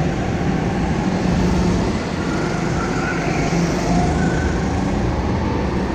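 Go-kart under way at speed, heard from on board: a steady, loud running rumble from the kart's motor and chassis.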